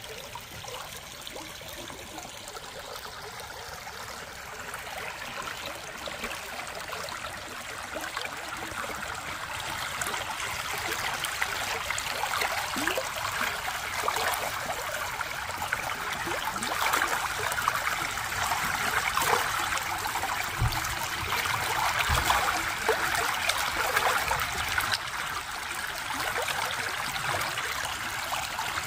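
Creek water spilling over a fallen log into a pool: a steady rushing splash that grows louder over the first ten seconds or so.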